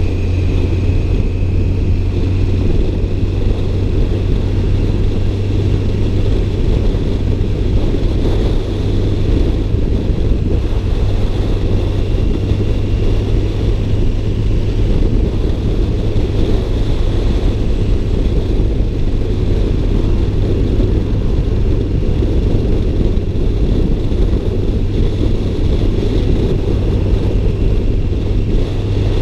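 Car running at a steady speed, a constant low engine and road rumble with no change in pitch.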